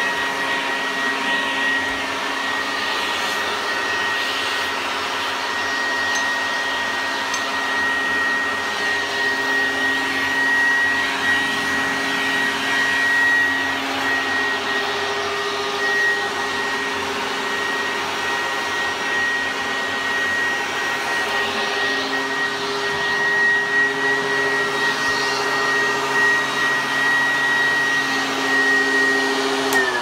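Hoover Junior U1012 upright vacuum cleaner running steadily on its hose tools, its brush belt lifted off the spindle: a motor hum under a constant high whine, the lower notes wavering slightly as the tool is worked.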